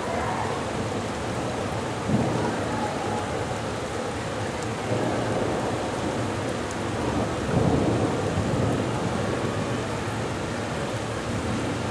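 Heavy rain pouring down steadily in a thunderstorm, with thunder rumbling; the sound swells louder about two seconds in and again around eight seconds in.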